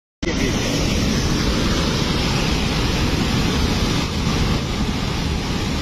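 Steady loud rushing noise of muddy water and debris flowing down a collapsed hillside after a landslide, with low buffeting on the microphone.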